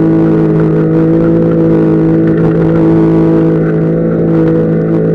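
Opel Monterey 4x4 engine running at steady high revs, heard from inside the cab, one constant drone that neither rises nor falls, while the vehicle drives through soft beach sand. It is held in second gear low range, run on the rev limiter.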